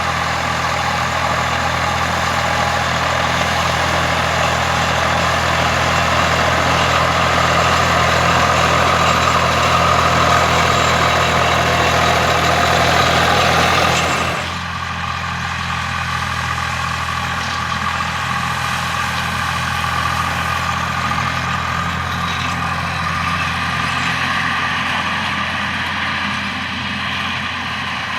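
Volvo BM tractor diesel engine running steadily with a deep, even drone. About halfway through, the louder mid-range engine noise drops off suddenly, leaving a quieter low drone.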